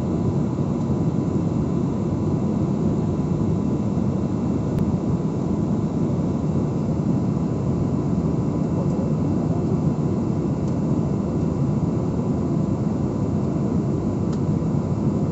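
Steady cabin noise of a jet airliner in cruise: a constant low rush of engines and airflow, with a faint steady high tone running through it.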